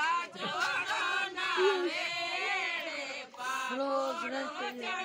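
Several voices singing together in overlapping, held and bending lines, with no instruments standing out.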